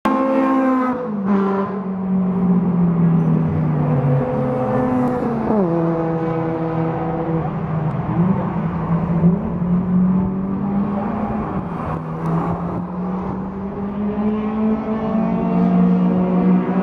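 Cars being driven hard on a race circuit, engines running at high revs the whole time. A car passes close about a second in with a drop in engine pitch, another sharp drop comes after about five seconds, and engine sound from cars further around the track carries on steadily.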